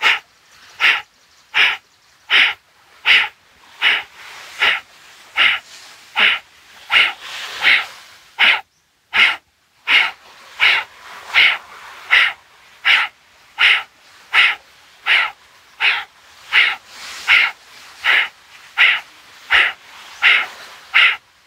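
Kapalbhati pranayama breathing: a steady run of short, forceful exhalations snapped out through the nose, about four every three seconds, with quiet passive inhalations between.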